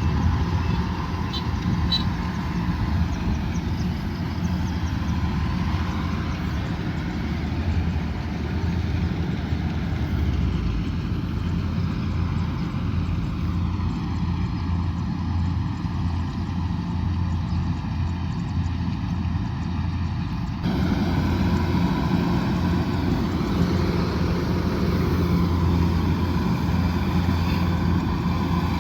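Kubota DC108X rice combine harvester running steadily: a diesel engine hum with the machine's working noise. The sound shifts abruptly about two-thirds of the way through.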